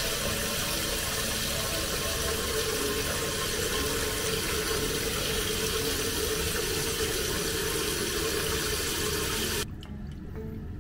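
Tap water running steadily for a toy poodle's foot wash, then shut off suddenly about a second before the end.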